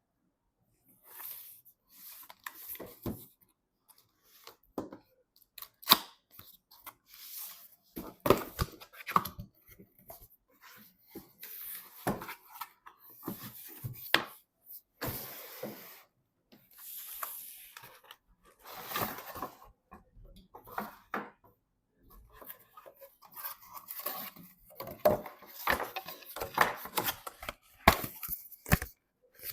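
Hands handling computer parts and their packaging: irregular rustling and tearing, with sharp clicks and knocks scattered throughout and the loudest knocks about 6 and 28 seconds in.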